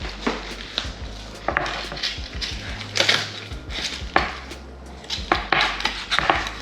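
Fillet knife cutting through a sheepshead's skin on a cutting board: several sharp knocks and short scrapes of the blade against the board, spread irregularly, over a steady low hum.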